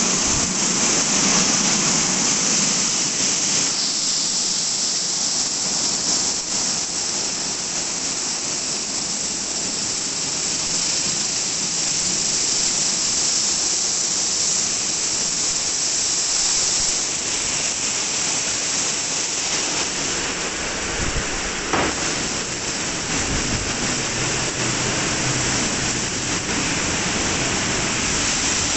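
WashTec SoftCare 2 Pro rollover car wash in its brush-wash stage: water jets spraying and rotating wash brushes scrubbing over a car, a steady loud hiss of spray. About three-quarters of the way through there is one brief sharp sound, and a low machine hum joins near the end.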